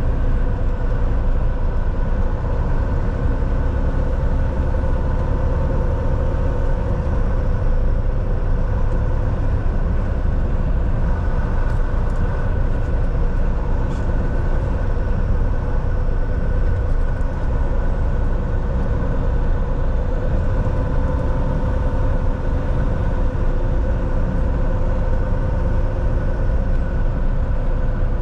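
Semi-truck under way: a steady engine drone with a few held tones over a deep road rumble, unchanging throughout.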